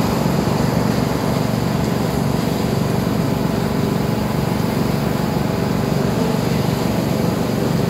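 Small petrol engine running steadily at constant speed: a motor pump drawing water out of the well chamber through a corrugated suction hose.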